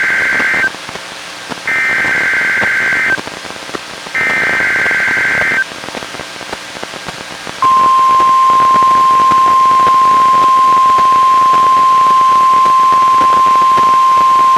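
Emergency Alert System SAME header bursts on NOAA Weather Radio: three equal warbling digital data bursts about a second apart, with radio hiss between them. About seven and a half seconds in, the steady single-pitch 1050 Hz warning alarm tone starts, marking the start of the weekly test.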